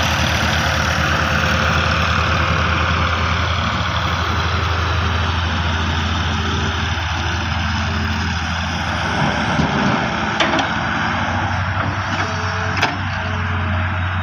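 Diesel engine of the excavator or tractor running steadily with a deep hum, with a few short sharp knocks near the end.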